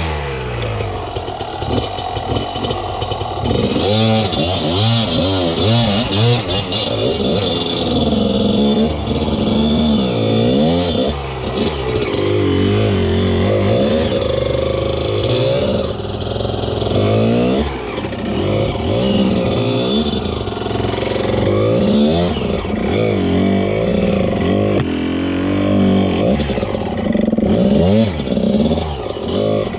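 Enduro dirt bike engine revving hard and unevenly, its pitch rising and falling every second or two. It starts suddenly at the beginning.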